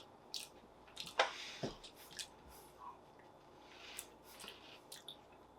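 Faint chewing of puffed corn snacks, with scattered soft crunches and mouth sounds; the chocolate corn puffs dissolve quickly once bitten.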